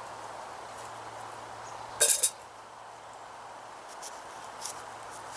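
A fillet knife cutting into a crisp jazz apple to core it: a short cluster of sharp crunching cracks about two seconds in, and a fainter crack near the end.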